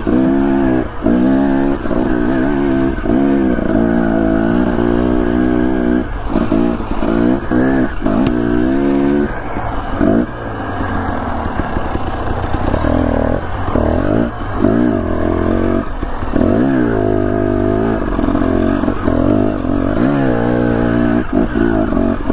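Off-road dirt bike engine ridden over rough trail, the revs rising and falling as the throttle is opened and chopped again and again.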